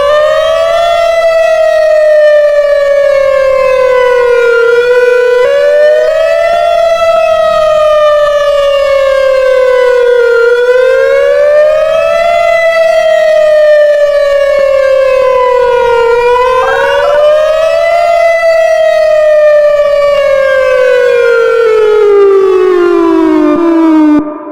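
Whelen WPS-2910 electronic outdoor warning siren sounding its wail tone. The pitch rises quickly, then glides slowly down, about four cycles of roughly six seconds each. On the last cycle it falls lower and cuts off near the end.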